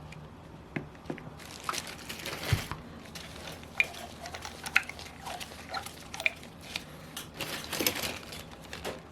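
Scattered light clicks, taps and small scrapes from hands handling the disassembled Saito 150 four-stroke model engine and its parts on the bench, with short spells of quiet between them.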